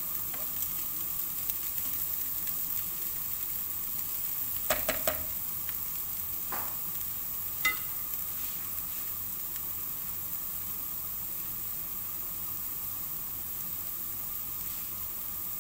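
Diced onion sizzling steadily in olive oil in a frying pan as it softens. A utensil knocks against the pan a few times about five seconds in, and there is a single ringing clink near eight seconds.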